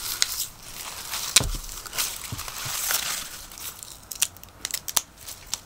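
Dry husk leaves being torn and stripped by hand from an ear of popcorn maize: crackling, rustling tears, with a few sharp clicks near the end.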